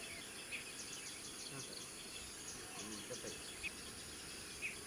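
Outdoor ambience of insects and birds: a steady high insect drone with scattered short chirps, and faint human voices in the middle.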